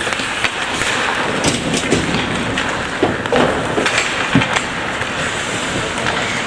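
Ice hockey game in play: a steady scraping of skates on the ice, with scattered sharp clacks of sticks and puck.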